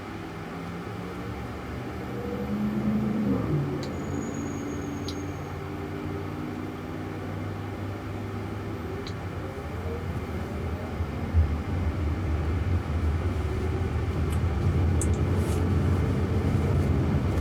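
Cabin noise inside a moving Jaguar I-Pace electric car: a steady tyre and road rumble that grows louder toward the end, with a faint whine that rises and then falls in pitch over the first few seconds and rises again later, as the car speeds up and slows.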